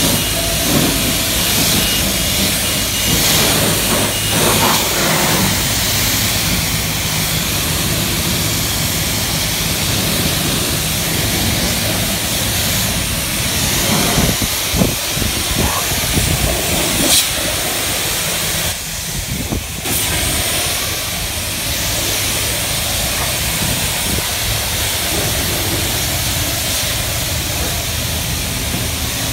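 Self-serve car wash pressure-washer wand spraying water onto a pickup truck's tyre, wheel well and door panels: a loud, steady hiss of high-pressure spray over a low hum.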